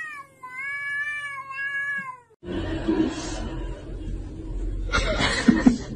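A long-haired white cat gives one long, drawn-out meow lasting about two seconds. It cuts off abruptly and is followed by a noisy background with a few sharp knocks about five seconds in.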